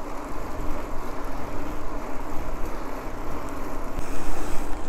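Steady rushing noise of wind buffeting the microphone while a mountain bike is ridden, with a faint, even low hum underneath.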